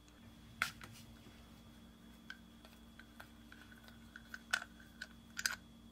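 Light clicks and taps of small reel parts and tools being handled and set down on a work mat during disassembly of a spinning reel, about eight separate clicks with a small cluster near the end.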